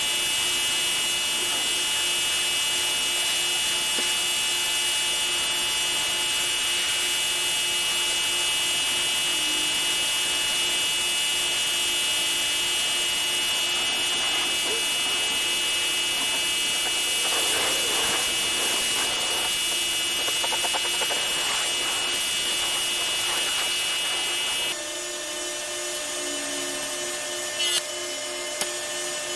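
Pressure washer running and spraying: a steady high hiss with a whine. The sound changes abruptly to a slightly quieter tone about 25 seconds in.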